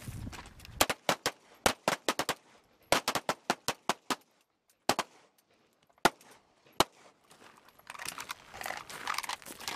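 Pistol shots from a firing line: a rapid string of about fifteen shots in the first few seconds, then three single shots spaced about a second apart.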